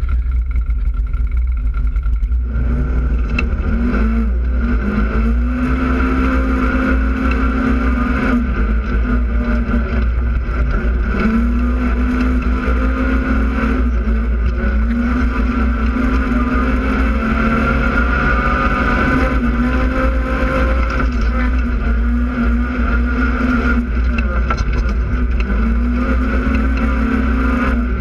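Polaris RZR side-by-side's engine running while driving, quieter for the first couple of seconds, then revving up and easing off again and again. Under it is a steady low rumble of wind and vibration on the hood-mounted camera.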